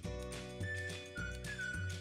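Background music with a steady beat and a high held melody line that steps down in pitch through the second half.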